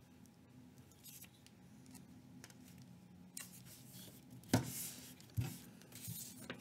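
Paper tabs being handled and a glue stick rubbed across paper on a file folder, scratchy and soft, with two sharp knocks about four and a half and five and a half seconds in. A faint steady low hum underneath.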